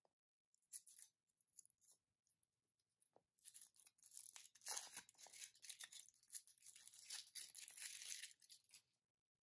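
Thin foil wrapper being peeled off a Kinder Surprise chocolate egg: crinkling and tearing foil, a short rustle about a second in, then steady crinkling from about three and a half seconds until it stops shortly before the end.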